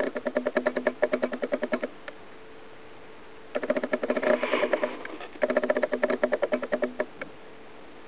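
Orange tabby kitten purring in three bursts of about one and a half to two and a half seconds, each a fast, even pulsing buzz.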